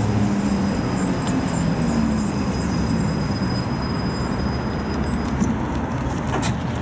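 71-619A tram running in and braking to a stop close by: wheel and running-gear noise with a thin, steady high whine that stops about five seconds in. A sharp click near the end.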